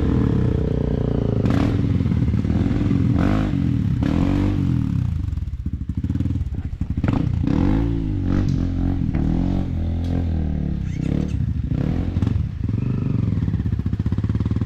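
Off-road motorcycle engine revving up and down in uneven bursts as the bike is worked up a steep climb, with knocks and clatter throughout.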